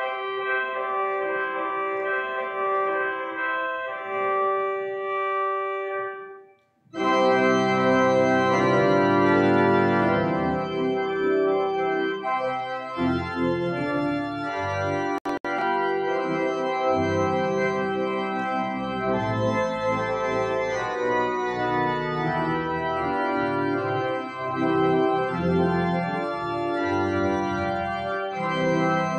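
Pipe organ playing sustained chords. About seven seconds in it stops for a moment, then comes back louder and fuller, with deep bass notes under the chords.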